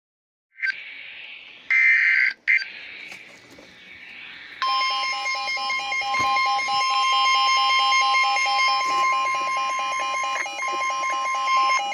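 Emergency Alert System severe thunderstorm warning: a few short, harsh bursts of digital header data tones in the first seconds, then a hiss. About four and a half seconds in, a long steady alert tone starts.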